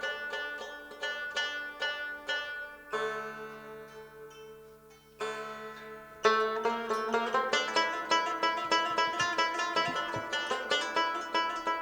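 Long-necked Pamiri lute (Badakhshani setor) played solo: plucked notes fading over ringing drone strings, two strong strokes about three and five seconds in, then fast, even plucking.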